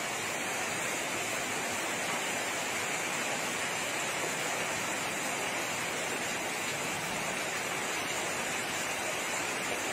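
Floodwater rushing fast along a street, a steady, unbroken rush of water.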